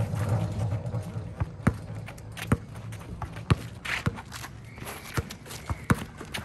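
Basketball game play: a basketball bouncing and players running on the court, heard as irregular sharp thuds.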